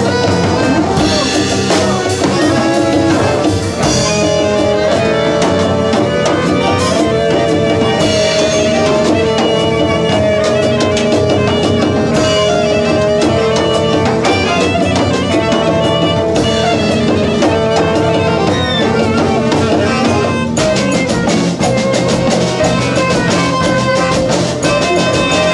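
Live band music: a saxophone plays long held melody notes over a drum kit.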